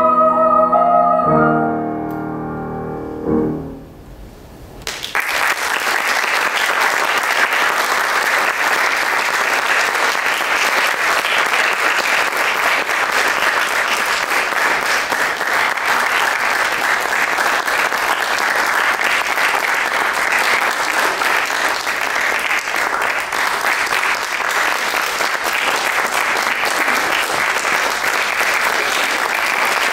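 The last notes of a song for soprano and Steinway grand piano: a held chord changes about a second in and fades away over the next few seconds. Then, about five seconds in, an audience breaks into steady applause that carries on.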